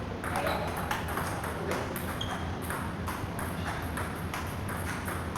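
Table tennis balls being hit in rallies: a quick, irregular run of sharp clicks as the celluloid balls strike bats and table.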